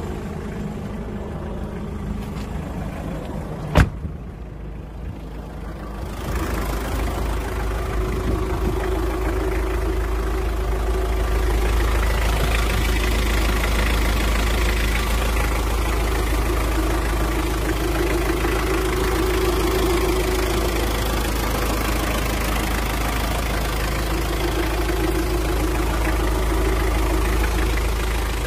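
Hyundai Terracan's 2.5-litre turbo-diesel engine idling steadily. A single sharp knock comes about four seconds in, and the engine sound is louder and fuller from about six seconds in.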